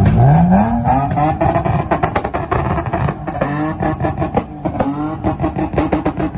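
A car engine revving. Its pitch climbs steadily through the first second, then rises and falls again a few times, with a fast run of crackling pops through the middle.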